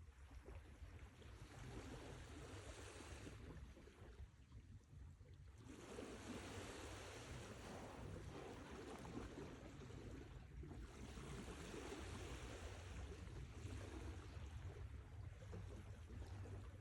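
Sea waves surging and washing on the shore, the surf noise swelling and ebbing every few seconds over a steady low rumble of the sea.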